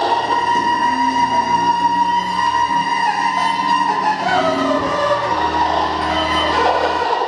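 Experimental improvised music: a steady high tone held over low droning tones that change pitch in steps, with a sliding tone falling in pitch around the middle.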